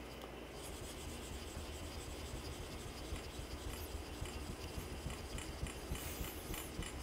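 Steel blade being honed back and forth on a soft Japanese natural whetstone: faint, continuous rubbing and scraping of steel on stone.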